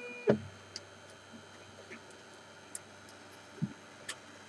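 CTC 3D printer's stepper motors whining on a steady two-note pitch, then cutting off with a click about a third of a second in. After that only a few faint, scattered ticks from the machine.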